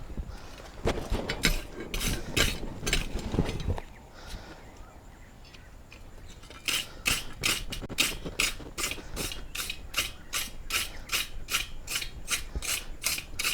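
Hand-worked rasping strokes on a small forged steel pendant: an irregular burst of scraping, then, after a short pause, a steady run of about three strokes a second.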